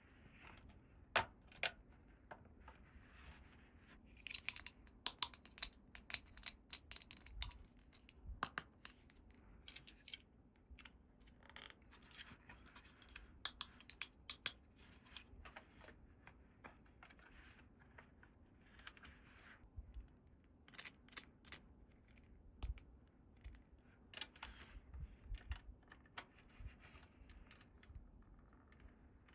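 Small plastic toy pieces handled close to the microphone: scattered sharp clicks and taps, some in quick runs, with soft scratching and rustling between them.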